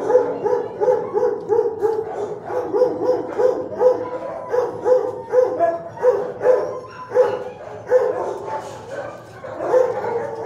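A dog barking over and over, a steady run of short barks about two to three a second.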